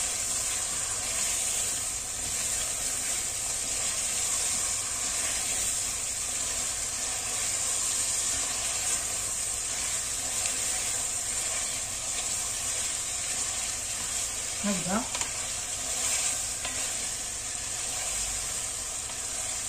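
Chicken pieces and almonds sizzling as they brown in hot oil in a pot, stirred with a wooden spoon: a steady frying hiss.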